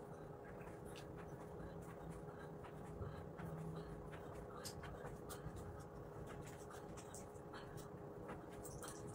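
Faint scuffing and rustling of a body and clothes against an exercise mat during repeated sit-ups, with scattered small clicks over a steady faint hum.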